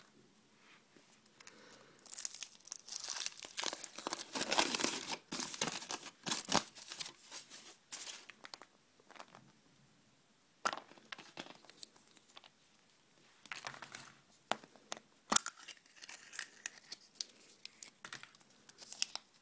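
Thin foil wrapper crinkling and tearing as it is peeled off a chocolate surprise egg, dense and continuous for about six seconds. Then come scattered crackles and sharp clicks as the chocolate shell is split and the small toy package inside is handled.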